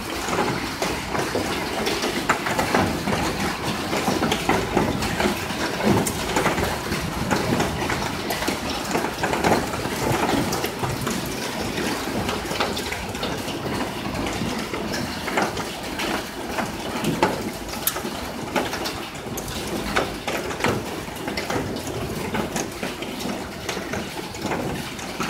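Hail and heavy rain falling steadily, with many sharp ticks of hailstones striking hard surfaces.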